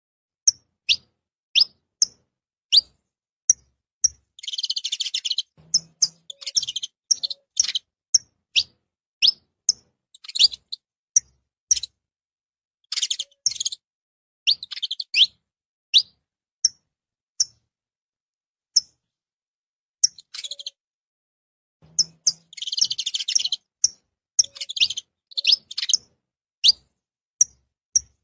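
Saffron finch (canário-da-terra) singing: a long series of sharp, quickly falling chip notes, broken by buzzy trilled phrases about four seconds in, around thirteen seconds and around twenty-three seconds, with a short pause in the middle.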